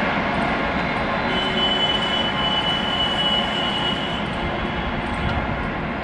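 Bhopal Shatabdi's passenger coaches rumbling on the rails as the train runs away at speed, the noise slowly fading. A thin, high, steady squeal from the wheels sounds from about a second in to about four seconds in.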